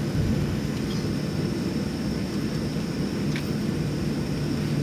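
Steady low rumble of an airliner heard from inside the cabin before takeoff, the drone of engines and air systems, with a thin high whine over it.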